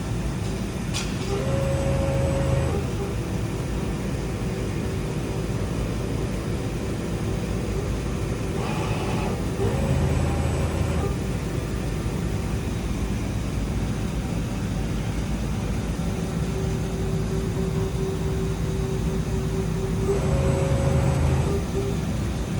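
Weiler E90 CNC flatbed lathe running under power: a steady mechanical hum with a constant tone, swelling three times at even intervals of about nine seconds, each swell lasting a second or so.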